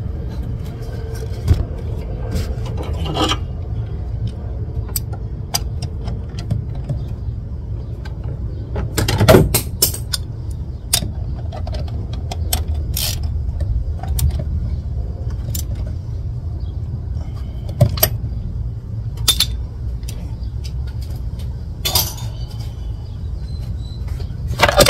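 Vehicle engine idling steadily, with scattered metallic clicks and knocks of hand work close by; the loudest is a short clatter about nine seconds in.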